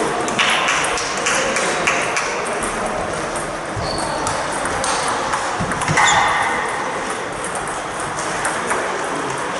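Table tennis balls clicking off tables and bats in quick, irregular taps, from several games going at once.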